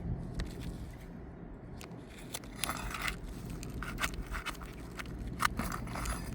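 Asphalt roof shingle being worked loose by hand or tool, giving a string of short scrapes, crackles and clicks that start about two and a half seconds in. The sharpest comes about five and a half seconds in.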